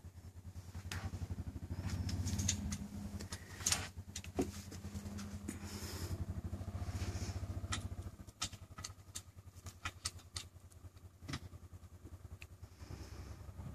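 Engine of a Mule utility vehicle running steadily, weaker after about eight seconds, with scattered sharp metal clinks and knocks as the wind-generator tower's base fittings are handled.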